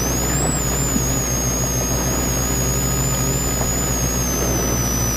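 Rally car's engine running hard, heard from inside the cabin, with dense engine and road noise and a high whine that rises briefly about half a second in, then slowly drifts lower.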